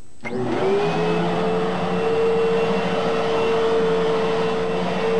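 Fantom Fury upright vacuum cleaner switching on: the motor spins up in about a second, its pitch rising, then runs at a steady whine while vacuuming carpet.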